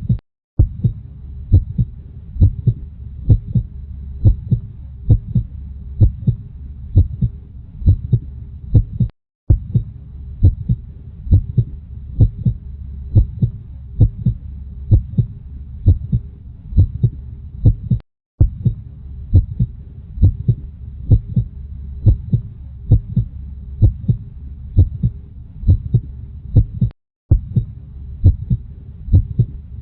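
Human heartbeat: steady, low, paired lub-dub thumps at about one and a half beats a second over a low hum. The sound cuts out for a split second about every nine seconds, three times.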